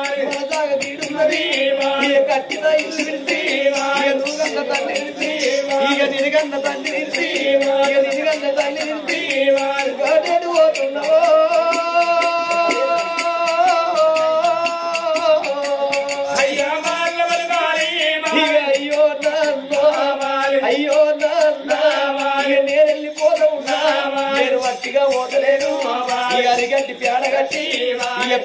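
Oggu Katha folk music: a man's voice singing a chant-like tune over a fast, steady beat of hand drum and small hand cymbals. The voice holds long notes in the middle.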